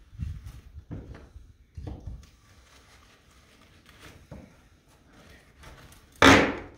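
A hand tool knocks against a plywood roof panel and rafter overhead: a few scattered knocks, then a much louder bang near the end.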